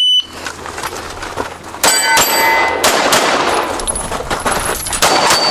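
Shot-timer beep at the start, then after almost two seconds a rapid string of pistol shots, with steel targets ringing as they are hit.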